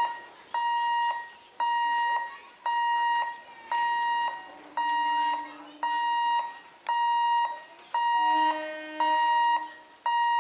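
Electronic warning alarm at a railway level crossing, beeping a steady mid-pitched tone about once a second, each beep about half a second long, warning that a train is coming and the gate is closed. A fainter, lower tone sounds briefly twice, around five and eight seconds in.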